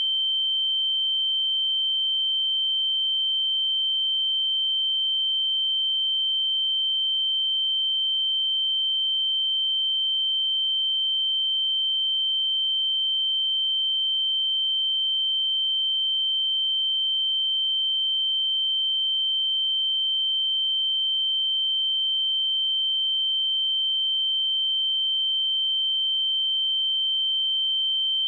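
A pure 3114 Hz sine-wave test tone, a single steady high-pitched note held at constant level without change.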